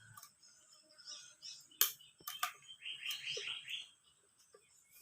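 Swiftlets chirping: a rapid twittering trill about a second long, beginning about two and a half seconds in, preceded by two sharp clicks.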